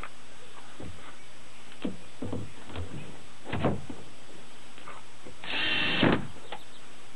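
A handful of knocks from wooden coop panels being handled, then a cordless screw gun runs for about half a second, driving a screw.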